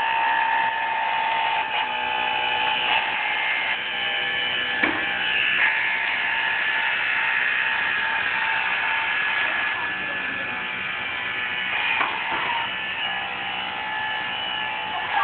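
Small electric motors of a remote-control pool skimmer running with a steady whine, with a couple of brief knocks.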